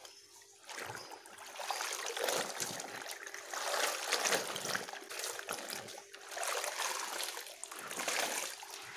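Water trickling and splashing as laundry is rinsed by hand, swelling and easing every couple of seconds.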